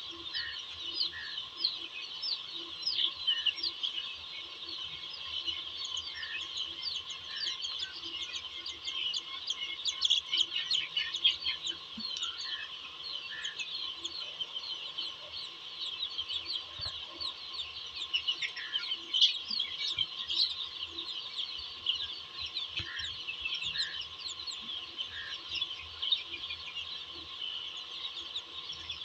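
A large brood of chicks peeping nonstop, a dense chorus of short high cheeps, with occasional lower clucks from older chickens mixed in.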